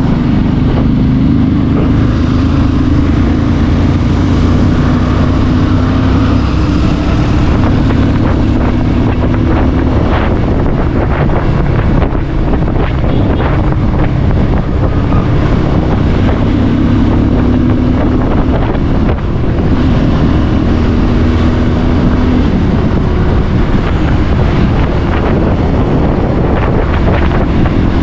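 Bajaj Pulsar 150's single-cylinder engine pulling steadily under way as the bike gathers speed to about 60 km/h, with heavy wind buffeting on the microphone.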